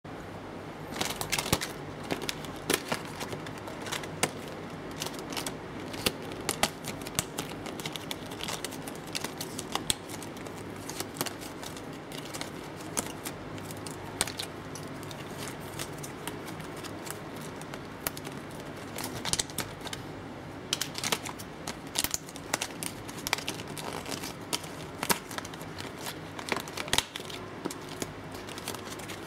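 Stiff card-stock paper craft being handled, bent and folded, its die-cut pieces being pushed out, giving irregular sharp clicks, snaps and rustles over a steady background hum.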